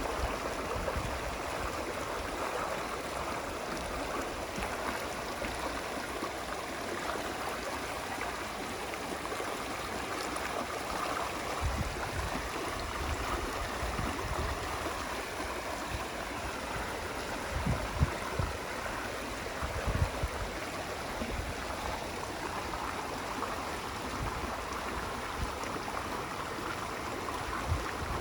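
Running water flowing steadily, with a few short low thuds in the second half.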